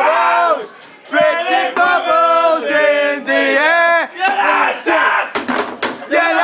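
Group of young men loudly chanting and yelling in unison, a drinking chant with long drawn-out notes urging someone to down his pint. There is a short break about a second in.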